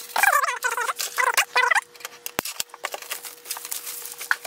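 Plastic packing around a new inkjet printer being handled: a loud wavering squeak for the first couple of seconds, then two sharp knocks and light crackling rustle.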